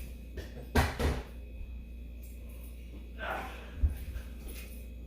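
A few knocks and thumps over a low steady hum: two close together about a second in and another near the end, with a brief swish just before it.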